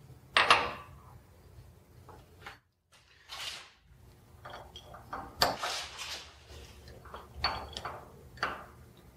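Steel clamping hardware (step blocks, a strap clamp and studs) being set down and shifted on a milling machine's T-slotted table: a handful of separate metal clanks and clinks, the loudest about half a second in, with a short scraping slide about three seconds in.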